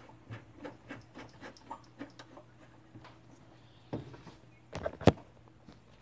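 Light metallic clicks and taps, a few a second, from work at a metal safe's lock, with a sharp knock about five seconds in.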